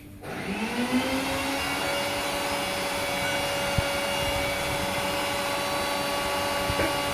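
Electric mixer grinder (mixie) switched on: its motor spins up with a rising whine over about two seconds, then runs at a steady pitch.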